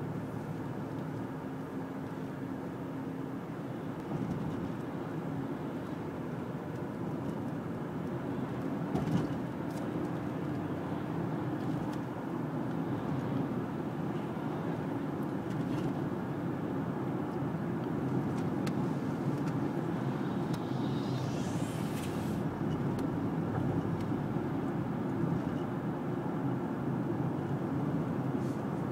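Steady road and engine noise heard inside the cabin of a moving car, growing slightly louder over time. There is a short knock about nine seconds in, and a brief rising high-pitched sweep a little past twenty seconds.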